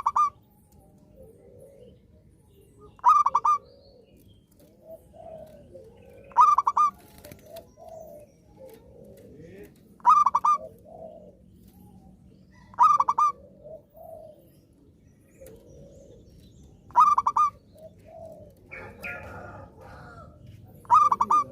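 Zebra dove (perkutut) singing: a short, loud burst of rapid staccato cooing notes, repeated seven times about every three to four seconds, with softer, lower calls in between.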